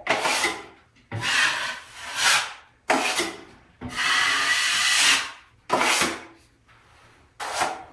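A wide steel drywall knife scraping across drywall as it spreads and feathers a thin final coat of joint compound, about six strokes, the longest about four seconds in. Around six seconds in the knife is scraped against the mud pan to load or clean it.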